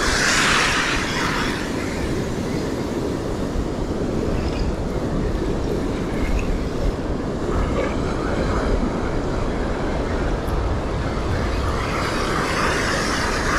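Ocean surf breaking and washing around a wader, with wind rumbling on the microphone. The wash swells about a second in, again around eight seconds, and near the end.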